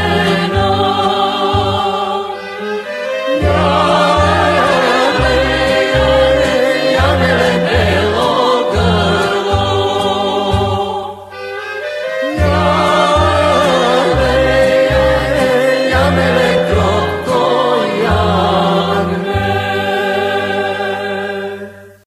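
Macedonian folk song sung by a male singer with backing voices, over instrumental accompaniment and a steady pulsing bass beat. There is a short dip between lines about halfway, and the music fades out at the very end as the song finishes.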